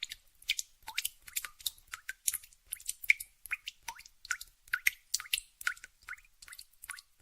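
Tap dripping fast, each drop a short, sharp plink landing in water, about three to four a second in a slightly uneven rhythm.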